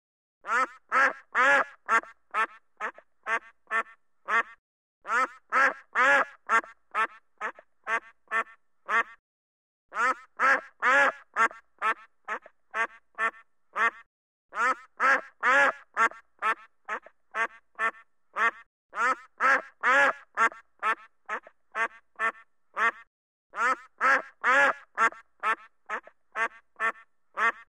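Duck quacking in repeated runs of about ten quacks, two to three a second. Each run is loudest near its start and trails off, with a short pause before the next.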